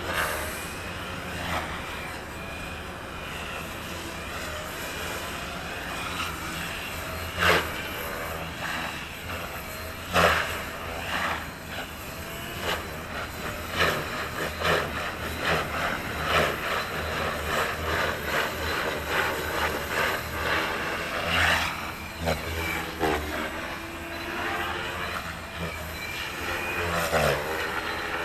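Electric RC helicopter (KDS Agile 5.5) in 3D flight: rotor blades whirring and the motor whining, its pitch sliding up and down as the blades load and unload. A few sudden loud knocks cut through the steady hum.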